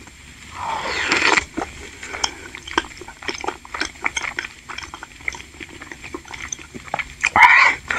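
Close-miked chewing of a chewy tapioca ball (bakso aci) filled with shredded spicy chicken, with many small sticky mouth clicks. There are louder noisy moments about a second in and again near the end.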